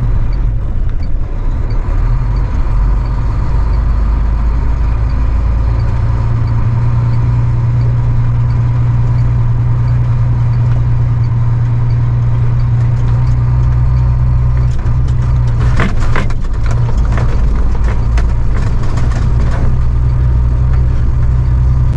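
Truck engine running steadily under way, a deep, even drone, with a run of knocks and rattles about fifteen to twenty seconds in.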